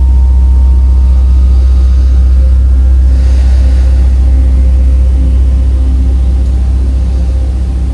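A loud, steady low hum that runs without a break, with faint higher steady tones above it.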